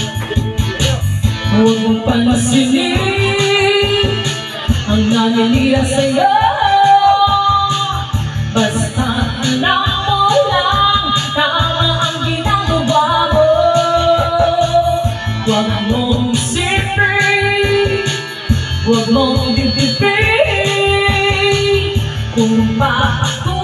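Woman singing into a handheld microphone over a backing track with a steady beat and guitar.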